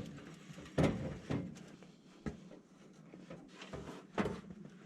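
A handful of separate knocks and clunks as equipment is handled and pushed into place, over a faint steady low hum.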